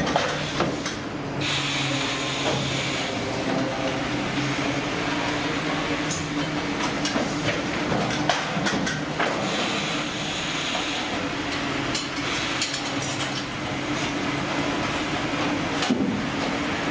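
Fish-processing conveyor machinery running: a steady mechanical din with a low hum, plus scattered clicks and clanks from the line.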